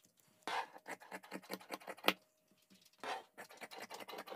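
Large tailor's scissors cutting through printed fabric: a quick run of small snipping clicks as the blades close, with a few louder taps. The clicking pauses for nearly a second a little after two seconds in, then resumes.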